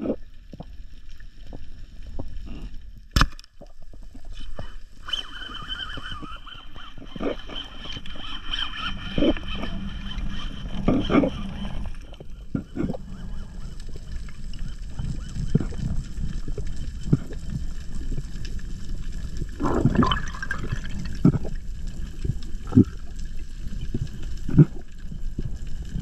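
Underwater sound picked up by a diver's camera in its housing: muffled water swishing and gurgling with scattered knocks and bubbles. There is one sharp snap about three seconds in.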